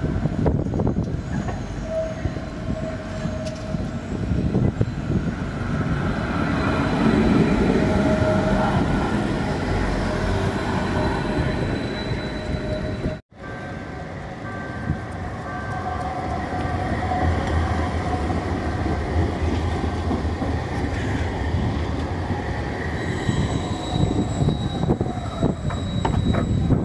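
Tram running on its rails, a steady rumble with thin, high squealing tones from the wheels. The sound cuts out for a moment about halfway through, then the rumble and squeal carry on.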